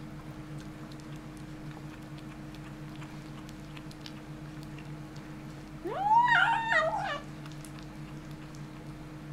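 Kitten giving one loud meow-like cry about six seconds in, its pitch rising sharply and then held, wavering, for just over a second. A steady low hum and faint small ticks run underneath.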